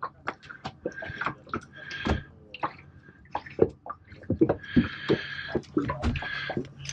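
Irregular knocks and clicks of hands working around a boat's seacock and hose fitting in the bilge locker, with water splashing in two short bursts. The seacock is being checked for leaks just after launch.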